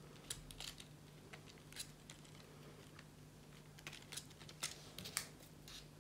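Faint, scattered small clicks and rustles of hands handling coffee-filter petals on wire stems while wrapping them with stem tape, over a faint steady hum.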